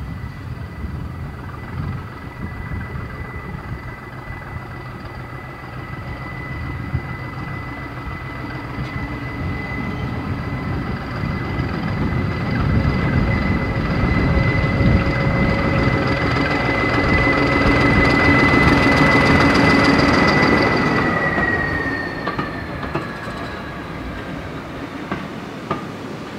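BR Class 14 diesel-hydraulic shunter D9516 hauling a coach past, with engine rumble and a steady high whine. The sound builds as it approaches and is loudest about three-quarters of the way through. The whine then drops in pitch as the loco passes and fades away.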